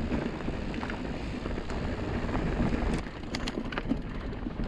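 Mountain bike rolling down a dusty, rocky dirt trail: tyres on dirt and loose stones, with wind buffeting the microphone. A few sharp clicks and rattles come about three seconds in.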